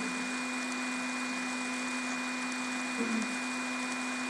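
Steady electrical hum over a constant hiss: room tone with no change, apart from a brief faint low sound about three seconds in.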